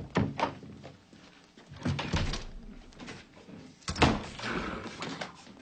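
A door being opened and shut among a string of knocks and thumps as a man hurries into a bathroom, the loudest bang about four seconds in.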